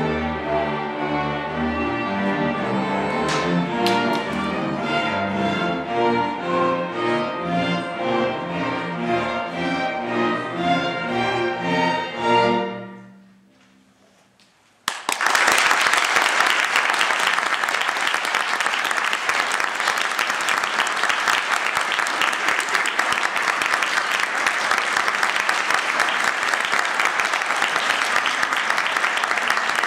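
A youth string orchestra of violins, cellos and double bass plays the closing bars of a piece, ending on a final note that fades about thirteen seconds in. After a brief silence, an audience breaks into steady applause.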